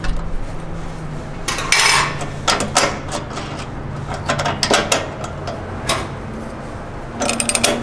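Scattered metal clinks and knocks as a copper strap and hand tools are handled and fitted inside a welder, with a short scrape about two seconds in and a quick run of clicks near the end.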